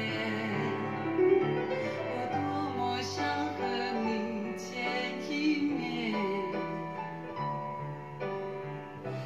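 A passage of a Mandarin pop ballad with piano prominent, played back through a pair of Mordaunt-Short MS-90 bookshelf loudspeakers.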